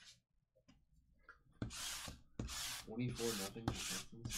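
Sticky lint roller rolled back and forth across a desk mat, a tacky rasping sound with each stroke. About four strokes, starting near the middle.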